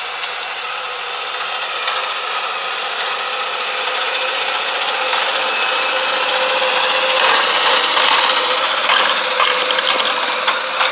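Tractor engine working under load while a Bomford Dyna-Drive cultivator churns through grass turf, with a steady hum over a dense rattle of soil and tines. It grows gradually louder toward the end.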